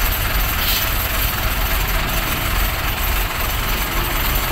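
Heavy cargo truck's diesel engine running steadily at low revs, a constant low rumble under an even hiss of background noise.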